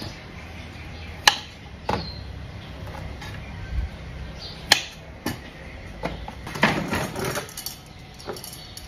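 Sharp knocks of a knife and utensils on a table as carrots are trimmed by hand, two pairs of knocks about half a second apart. This is followed about seven seconds in by a longer clatter of a plastic bowl being handled.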